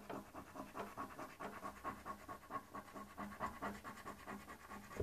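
A coin scraping the latex coating off a paper Lotto scratchcard in quick back-and-forth strokes, several a second.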